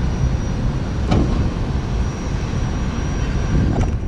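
Steady rumble and hiss of distant jet engines from a regional jet taxiing at an airport, with a faint high whine coming and going.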